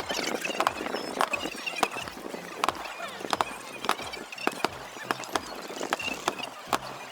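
Fireworks crackling: a run of sharp, irregular pops and cracks, several a second.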